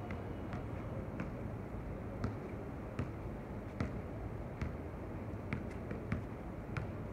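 Basketball being dribbled on a hard court: a series of sharp bounces, irregularly spaced at roughly one a second or faster, over a steady low background rumble.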